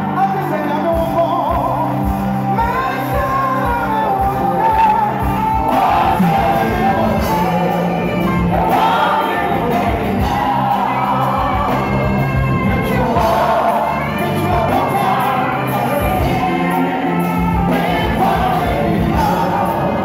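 Live gospel worship music: a lead singer and backing choir singing over a band with keyboards and a steady beat. The beat comes in about a second in.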